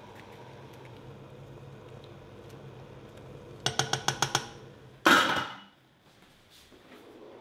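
A spoon clinking quickly about six times against a stainless steel cooking pot, then a loud metallic clang as the lid goes onto the pot, ringing briefly. A steady low hum runs underneath until the clang.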